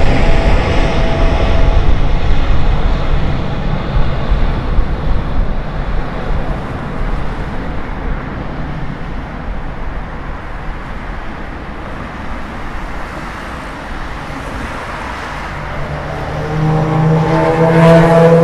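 Jet noise from a departing Boeing 777-300ER's two GE90 turbofans at takeoff thrust, loud as it passes overhead and then slowly fading as it climbs away. Near the end a second Boeing 777's engines grow louder, with a low steady hum and several steady higher tones.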